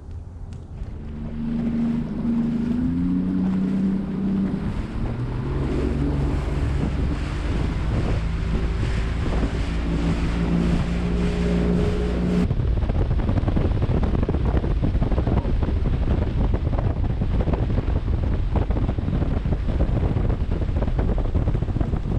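Bass boat's outboard motor running at speed across the lake, a steady low rumble with wind buffeting the microphone. The sound changes abruptly about twelve seconds in, leaving only the rumble and wind.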